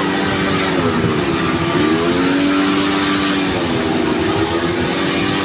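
Motorcycle engine running as the bike rides along, its pitch dropping and climbing back up twice, over a steady rush of wind and road noise.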